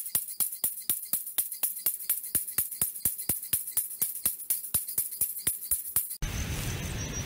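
Tambourine-like jingling beat, a fast steady rhythm of about five hits a second. About six seconds in it cuts off abruptly and a steady rushing noise takes over.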